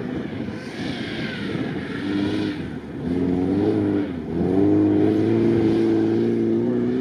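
Off-road vehicle's engine running hard under load. Its pitch wavers, dips briefly about four seconds in, then climbs and holds steady and louder.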